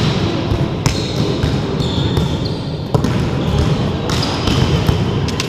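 Volleyball rally: the ball struck by players' hands and forearms with sharp slaps, about a second in, near the middle and near the end, and sneakers briefly squeaking on the gym floor in between.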